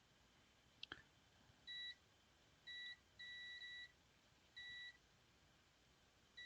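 Multimeter continuity beeper giving four short, irregular beeps of one steady pitch as the probes touch points on the TV main board; the beeps signal a short circuit still present on the board. A couple of small clicks about a second in, from the probes touching down.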